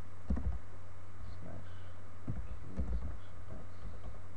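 A few keystrokes on a computer keyboard, dull separate taps spaced irregularly, over a steady low hum.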